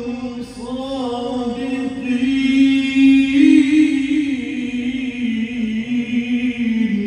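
A man reciting the Quran in the drawn-out melodic style of qirat, holding one long note whose pitch sways up and down.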